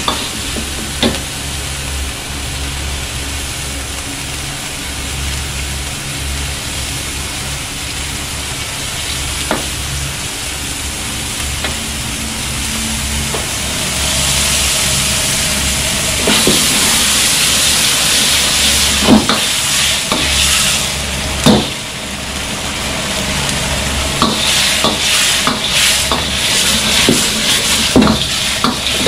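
Sauce bubbling and sizzling in a wok over a gas wok burner, with a long metal ladle stirring, scraping and knocking against the wok now and then. The sizzle grows louder about halfway through, and the ladle knocks come thick and fast near the end.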